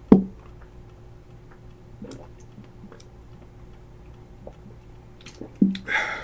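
A sharp click just after the start, then a few faint ticks and taps and a short noisy sound near the end, over a steady low electrical hum.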